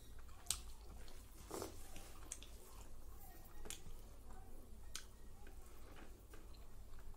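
Eating rice and chicken curry by hand: fingers mixing rice and curry on a metal plate, then chewing, with irregular short sharp clicks and wet mouth sounds.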